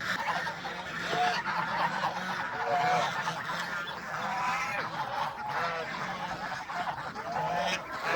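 A flock of domestic geese honking, with many short calls overlapping continuously.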